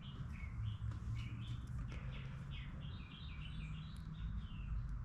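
A small bird chirping a quick run of short, high notes, over a low steady hum.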